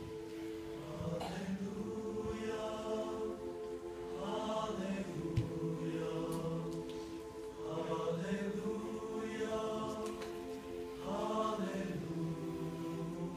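Mixed-voice concert choir singing long held chords, a low chant-like line under higher voices that swell in and fade about every three seconds.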